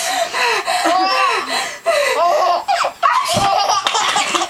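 A small child laughing hard in repeated, rapid bursts of belly laughter and giggles.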